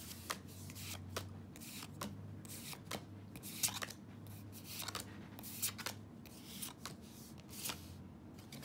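A stack of Pokémon trading cards being flipped through by hand, each card slid off the stack with a short snap, about two a second at an uneven pace.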